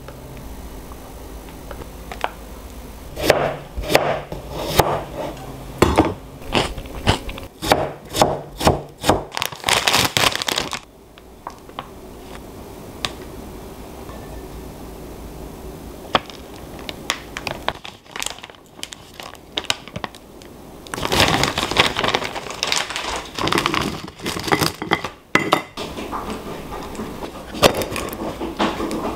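Plastic food packaging crinkling and rustling as it is handled and opened, including a meal-kit bag and a plastic sauce pouch. It comes in two busy bouts with a quieter stretch between, with light knocks mixed in.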